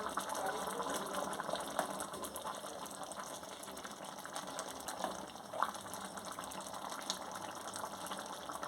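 Duck egg curry cooking in a pot: a steady hiss of bubbling liquid with a few small pops.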